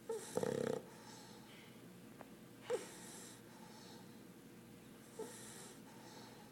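English Bulldog puppy snoring in deep sleep, the kind of noisy breathing typical of the breed's short, flat-faced airway. One loud snore near the start, then two quieter ones about two and a half seconds apart.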